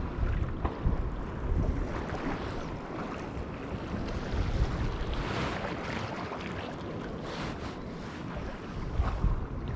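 Wind rumbling and buffeting on the microphone, over a steady wash of sea water in a harbour.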